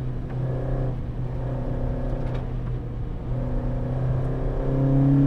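Peugeot 205 rally car's engine heard from inside the cabin, holding steady revs through a bend with two brief breaks, then rising in pitch and loudness near the end as the car accelerates.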